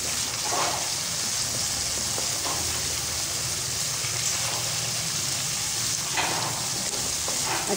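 Spice paste (masala) sizzling steadily as it fries in oil in a non-stick karahi, at the bhuna stage where the oil begins to separate and rise. A wooden spoon stirs and scrapes through it a few times.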